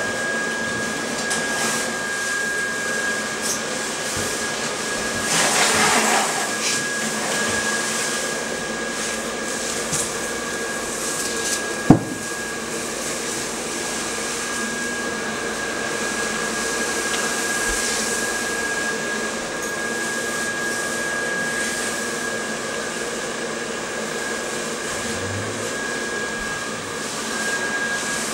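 Steady whir of an inflatable lawn ornament's blower fan, with a thin high hum over it. A brief rustle about five seconds in and a single sharp knock about twelve seconds in.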